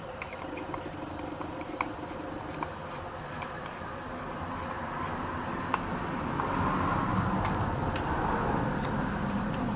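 Scattered light clicks and scrapes of hand tools driving the screws of a motorcycle air filter backing plate, over a steady background rumble that grows louder about halfway through.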